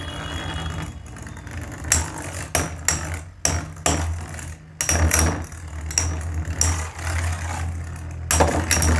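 Two Metal Fight Beyblades, Flash Sagittario attacking Phantom Orion, spinning in a plastic stadium: a steady whirring hum, with repeated sharp clacks of their metal wheels striking each other from about two seconds in.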